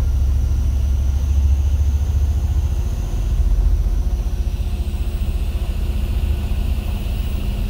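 Bus engine and road noise heard from inside the cabin while driving: a steady deep rumble.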